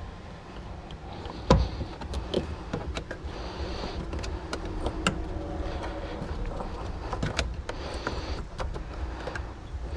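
Clicks, knocks and scraping of a fuel pump and sending unit assembly being pressed down against its spring into the fuel tank opening. There is one sharper knock about a second and a half in.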